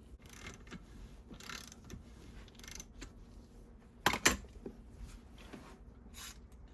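Metal tools and parts being handled: scattered light scrapes and clinks, with two sharp metal clicks close together about four seconds in.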